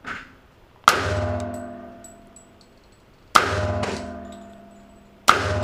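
Three shots from a Springfield Armory 1911 .45 ACP pistol, roughly two and a half seconds apart, each a sharp bang followed by a long ringing echo in an indoor range. The 30-year-old Geco ammunition, with its hard primers, fires on every trigger pull.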